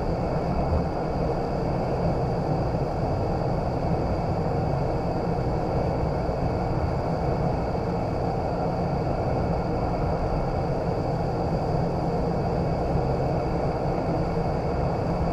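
Indoor vertical wind tunnel running: a loud, steady rush of fan-driven air up through the flight chamber, with a faint steady high whine over it.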